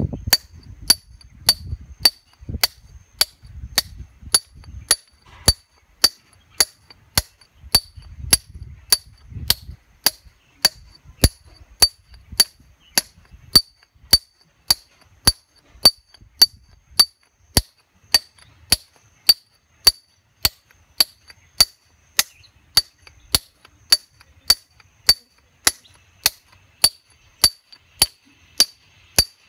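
Hand hammer striking a steel chisel held against a rock boulder to cut the stone: a steady run of sharp metallic clinks, about two a second, each with a brief high ring.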